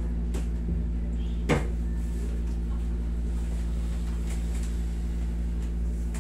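Steady low hum with a single sharp knock about one and a half seconds in, and a fainter one just before it.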